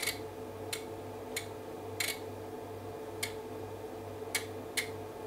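Relays in a Keysight DAQM901A armature multiplexer clicking as the DAQ970A switches between channels during a scan sweep: about seven sharp clicks at uneven intervals, over a steady low hum.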